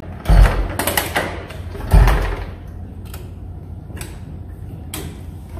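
Kick starter of a vintage motorcycle stamped down twice, each kick a heavy thump with a clatter as the engine turns over, about half a second and two seconds in. The engine does not catch; a few light clicks follow.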